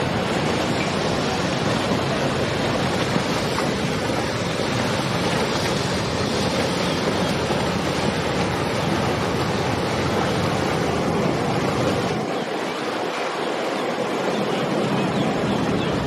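Steady rushing noise of churning water and wind as motor yachts cruise past, with no clear engine note; the low rumble drops away about twelve seconds in.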